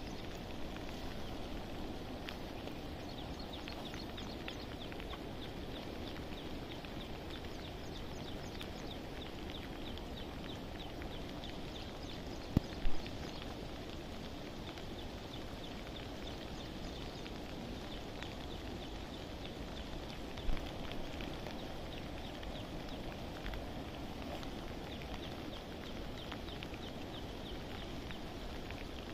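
Steady rain falling on open water and riverbank grass, with a fast, regular high chirping running through most of it. Two or three sharp knocks stand out, twice close together about halfway through and once near two-thirds in.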